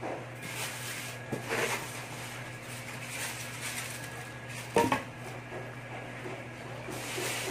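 Clear plastic packing rustling and a cardboard box being handled as the contents of a speaker's box are dug out, with a sharp knock about five seconds in.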